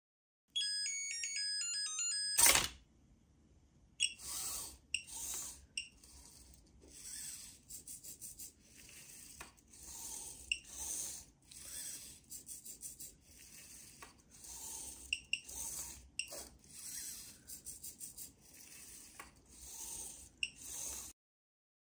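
Petoi Bittle robot dog: its buzzer plays a short beeping tune, a sharp click follows, and then its servo motors whir in many short bursts as the legs move through standing, sitting and waving poses.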